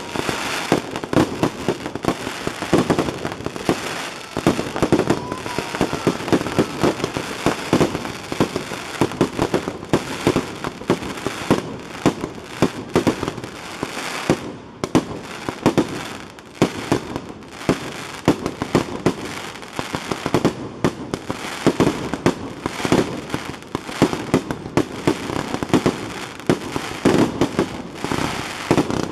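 Aerial firework shells bursting in a continuous barrage, with dense crackling bangs coming several times a second without a pause.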